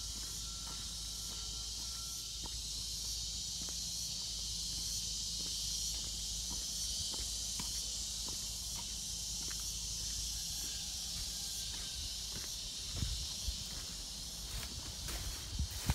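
Steady, high-pitched chorus of insects, a continuous hiss-like buzz, over a low steady rumble. A few low thumps come near the end.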